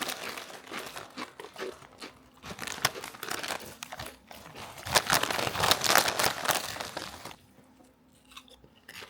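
Crinkling of a foil potato-chip bag being worked open, and crunching of chips being bitten and chewed. The crackle is loudest from about five to seven seconds in and stops abruptly just after seven seconds.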